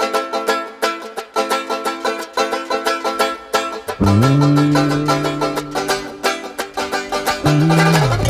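Background music: a quick plucked-string tune, joined about four seconds in by a deep bass line with sliding notes.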